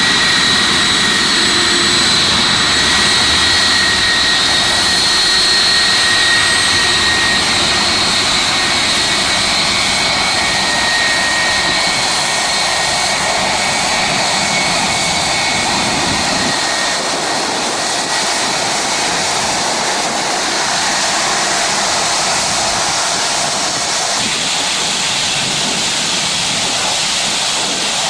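Boeing 757-200's jet engines running loud and steady as the airliner taxis close by, with a high fan whine over the roar of the exhaust. About halfway through, the whine and the low rumble drop away, leaving a steadier hiss as the aircraft moves off.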